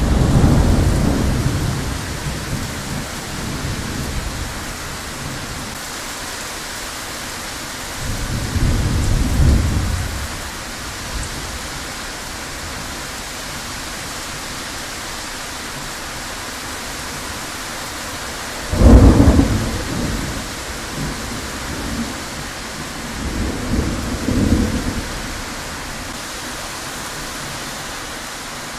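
Heavy thunderstorm: steady hiss of pouring rain, with several rolls of thunder. One rumble comes as it begins, a deeper one about eight seconds in, the loudest and sharpest crack-and-roll about nineteen seconds in, and a last rumble around twenty-four seconds.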